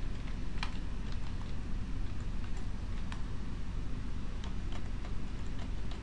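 Computer keyboard keys clicking at an uneven pace as a name and then a phone number are typed, over a steady low hum.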